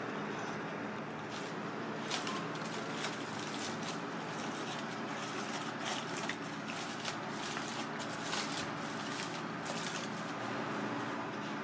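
Aluminium foil crinkling and rustling in short irregular bursts as a foil parcel is pulled open, over a steady background hum.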